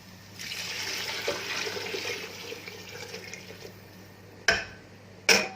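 Heated water poured into a cooking pot for about three seconds, then two sharp knocks of cookware near the end.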